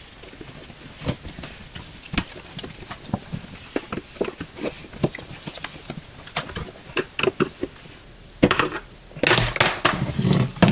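Irregular clicks, knocks and rattles of hands working on the bottom cover panel and parts underneath a dishwasher laid on its side. The clatter turns denser and louder near the end.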